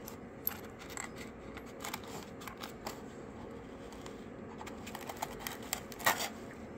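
Small scattered clicks and taps as Mitee-Bite eccentric hex clamps are handled and lifted out of a foam-lined case, with a louder click about six seconds in.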